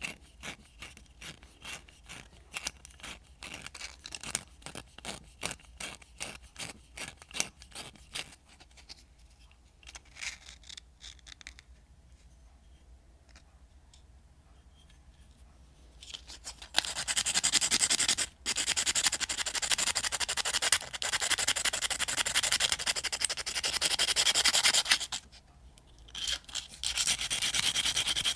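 Sandpaper rubbed by hand over the rusty metal blade of an old spoon knife. It starts as short separate strokes and eases into a quieter lull. About halfway through it becomes fast, continuous scrubbing, broken by one brief pause.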